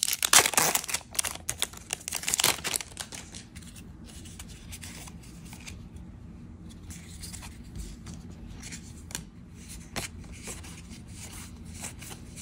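A foil Magic: The Gathering collector booster wrapper crinkling and tearing for the first two to three seconds, then the quieter rustle and flick of trading cards being slid and sorted by hand, with a light click about ten seconds in.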